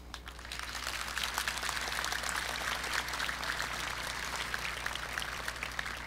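Audience applauding, the clapping building up over the first second and then holding steady, easing slightly near the end.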